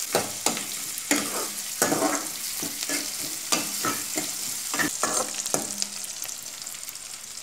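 Sliced small onions and green chillies sizzling in hot oil in a metal wok while being sautéed, with a steel ladle scraping and clinking against the pan at irregular moments as they are stirred.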